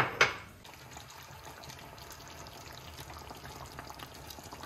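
Two sharp knocks, then the soft, steady hiss and faint crackle of pots simmering on a stove: a pan of chicken in gravy and a large steel stockpot, both steaming.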